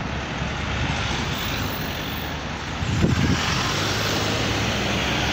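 Road traffic at a street intersection: a car and a pickup truck driving past close by, with engine and tyre noise. The sound swells louder about three seconds in as the pickup passes.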